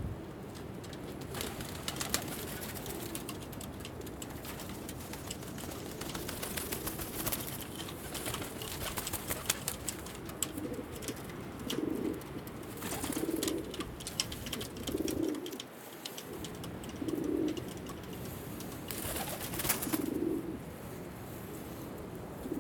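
Altambasi pigeons cooing, a run of low coos coming every second or two in the second half, with scattered clicks and rustles from the birds on their perches.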